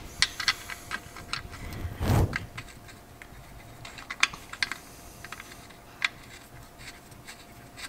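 A wrench clicking and tapping on the nuts and studs of the transmission adapter plate: a run of light, irregular metal clicks, with a dull thump about two seconds in.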